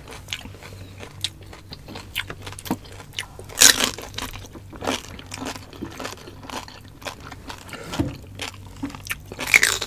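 Close-up eating sounds of two people biting and chewing roast suckling pig: irregular sharp crunches and crackles of the skin, loudest about three and a half seconds in and again near the end.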